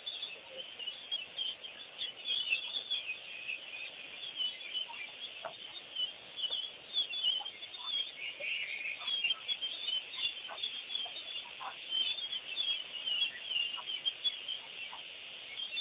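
Many birds calling at once in a dense, continuous chatter of short, high calls, with a few lower, separate calls scattered through it.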